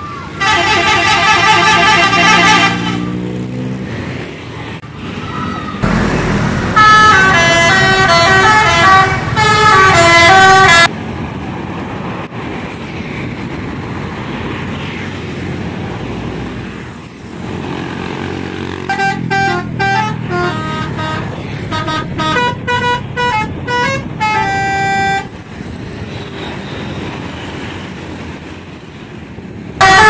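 Bus telolet horn, a multi-tone musical air horn, playing tune-like runs of stepped notes in three bouts: about two seconds at the start, about four seconds starting near a quarter of the way in, and a choppy string of short blasts about two-thirds through. Steady engine and road noise fills the gaps between.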